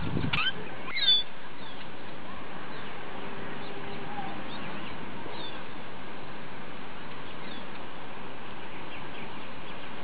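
A few short bird chirps over a steady background hiss. The clearest and loudest come in the first second and a half, with fainter chirps later.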